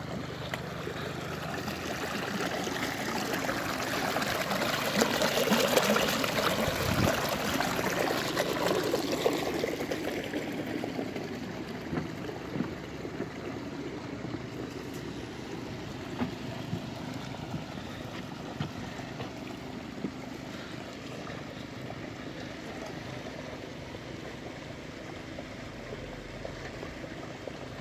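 Water trickling and splashing, swelling to its loudest a few seconds in and then settling into a fainter steady wash. A few light knocks come in the later half.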